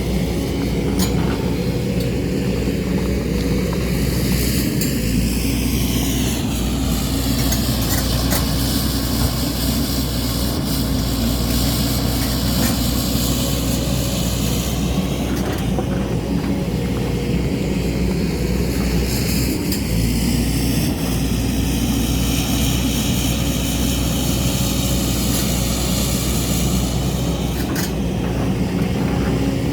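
JCB excavator's diesel engine running steadily under load, with a high whirring hiss above it that slowly swells and fades, and a few faint clicks.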